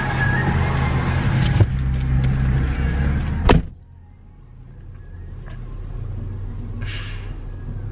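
Car idling with a steady low hum, then a car door slams shut about three and a half seconds in, the loudest sound, after which the cabin is much quieter. A short noise follows near the end.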